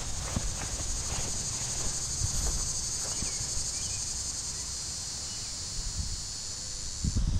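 Steady, high-pitched insect chorus, cricket-like, which cuts off suddenly near the end. Low wind rumble on the microphone runs underneath, with a few faint chirps about a third of the way in.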